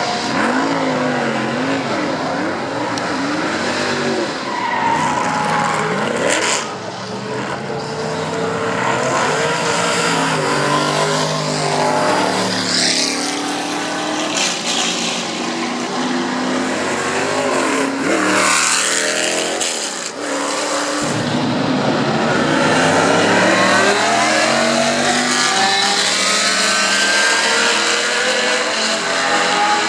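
Can-Am race car engines at racing speed, revving up and down through gear changes as the cars pass, with several engine notes overlapping. The sound breaks off briefly twice, about a third of the way in and again about two-thirds in.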